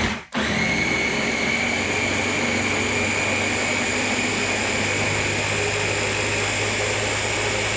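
Blender motor switching off from a short pulse, then running continuously with a steady whine, chopping and puréeing a jar of mixed solid food.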